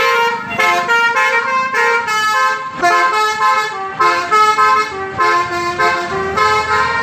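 Basuri-type telolet bus horn playing a tune: a run of short horn notes, each a chord of several tones, stepping up and down in pitch two or three times a second, stopping abruptly near the end.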